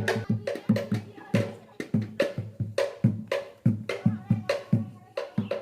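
Background music with a fast, steady drum beat, about three hits a second.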